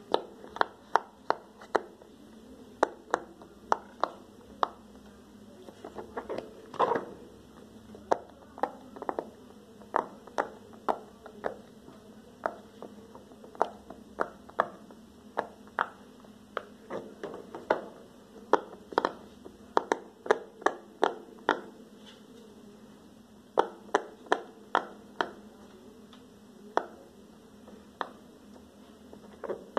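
Bubbles of an orange silicone pop-it fidget toy being pushed in one after another by a finger, each giving a short sharp pop. The pops come at an uneven pace of about one to three a second, pausing briefly a couple of times in the later part.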